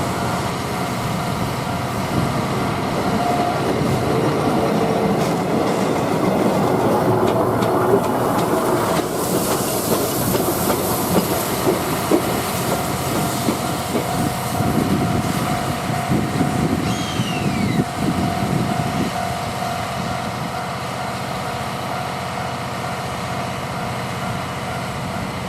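A steam-hauled passenger train, C57 180 with 12-series coaches, rolling past with its wheels clattering over the rail joints. It is loudest in the middle and eases off toward the end.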